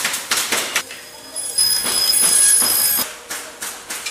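Woodworking machinery working a round wooden cable-drum flange: a run of knocks and clatter a few times a second, with a steady high whine for about a second and a half in the middle.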